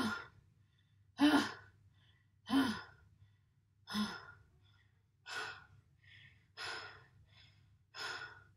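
A boy breathing hard in loud, gasping breaths through an open mouth, about seven of them, roughly one every second and a half. Several begin with a short voiced catch.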